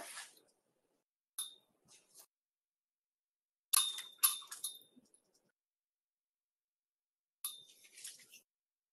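A few short, high clinks, in three groups: one about a second and a half in, a louder cluster around four seconds in, and another near the end.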